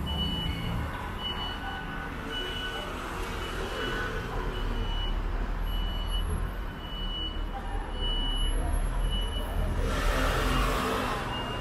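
Short, high electronic beeps repeating at uneven intervals of about a second, over a steady low rumble and the general noise of a busy station hall. A brief hiss rises near the end.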